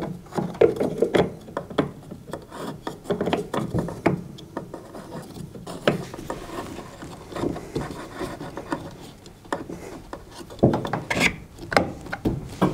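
Plastic fan impeller of a tumble dryer being worked by hand onto the motor shaft, turned to line up its flat side with the flat on the shaft: irregular plastic knocks, clicks and rubbing, with a louder cluster of knocks about ten to eleven seconds in.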